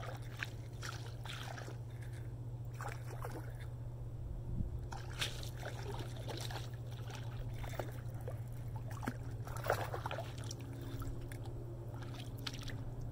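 A hooked bass being reeled in on a spinning rod: scattered small splashes and clicks at irregular moments over a steady low hum.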